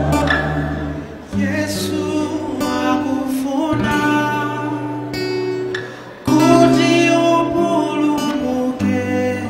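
A gospel vocal group singing in harmony, deep bass voices holding long low notes under the higher parts. The phrases dip and then come back in loudly, a little over a second in and again after six seconds.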